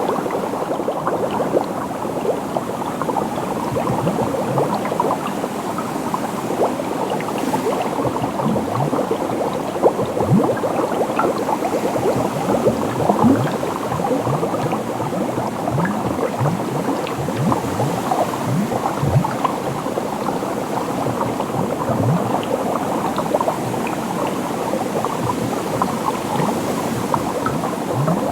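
Steady, dense bubbling of liquid: many small bubbles popping in quick succession, each a short blip that glides in pitch.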